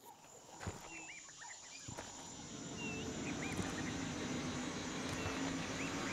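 Scattered short bird chirps over a hiss that swells steadily louder, with two thuds in the first two seconds and a low steady hum coming in about halfway.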